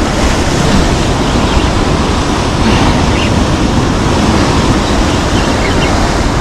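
Ocean surf washing in a steady loud rush, with wind buffeting the microphone.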